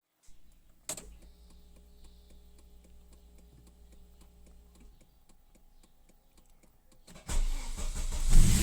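A sharp click about a second in, then a faint steady hum with a regular light ticking, then a Volvo 850's five-cylinder engine cranks and starts about seven seconds in and runs loudly.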